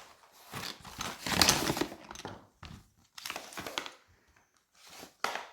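Plastic wrapper crinkling in irregular bursts as a Kinder Joy egg and its toy packet are handled and opened.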